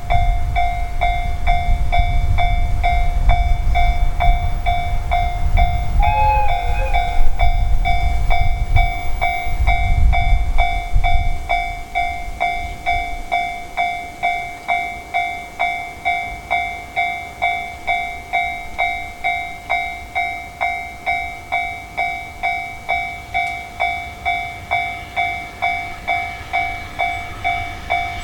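A level-crossing warning bell rings in a steady beat of just under two strikes a second while a container freight train rolls past with a heavy low rumble. The rumble dies away about twelve seconds in, leaving the crossing bell ringing alone.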